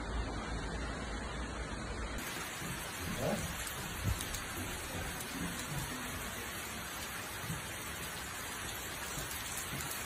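Steady hiss of rain falling onto floodwater, with a low rumble under it for the first two seconds.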